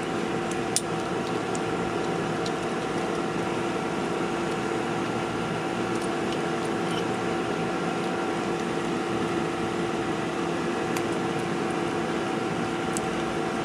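Steady machine hum with several held tones in it, from running machinery, with a few faint metallic clicks as a flaring tool is fitted onto copper tubing.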